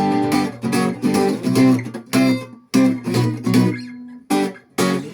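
Guitar strumming the closing chords of a song, in choppy, rhythmic strokes. It finishes with two short, clipped strums near the end, then stops.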